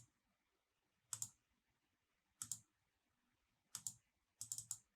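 Faint computer mouse clicks: a pair of clicks about every 1.3 s, then a quicker run of clicks near the end.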